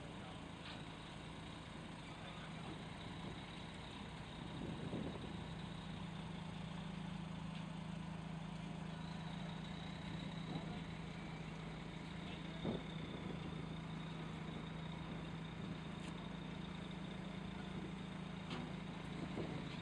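Engine of a heavy-transport vehicle running steadily under load with a low hum, growing a little louder about five seconds in, with a few faint knocks.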